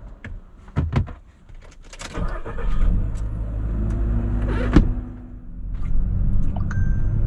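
A car's engine running steadily, with a few sharp knocks in the first second.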